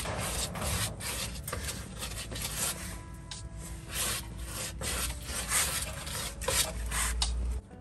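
A brush scrubbing thick thinned-epoxy undercoating onto the steel underside of a pickup bed, in quick, irregular scraping strokes that stop abruptly near the end.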